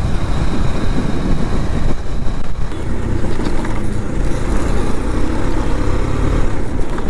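KTM Duke 250's single-cylinder engine running while the motorcycle is ridden, heard as a steady low rumble.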